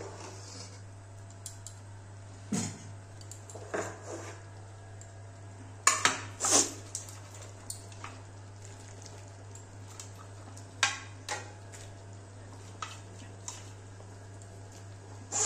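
Cooking spoon knocking and scraping against a metal kadai while stirring thick boiling dal, in irregular knocks with the loudest pair about six seconds in.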